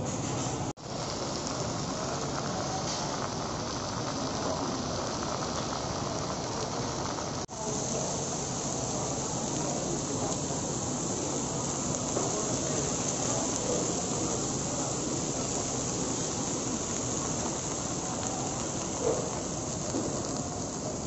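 Food sizzling on hot cast-iron plates: a steady hiss and crackle, brighter after about seven and a half seconds. The sound cuts out for an instant twice.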